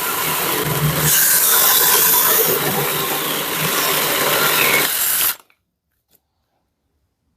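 Ferm 12-volt cordless mini chainsaw cutting through wood, its chain rasping in the cut. The sound cuts off suddenly about five seconds in, leaving near silence.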